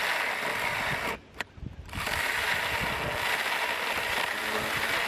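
Cordless mini chainsaw cutting wood, its chain running steadily; it stops for under a second about a second in, then starts cutting again.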